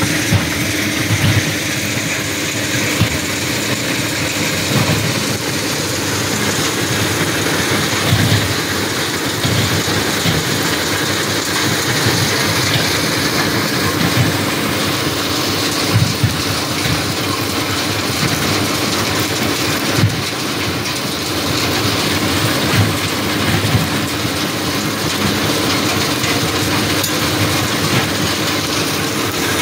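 Small stone-crushing plant running: a jaw crusher breaking granite, with a steady machine drone and irregular low knocks and rattles as the stone is crushed and carried away.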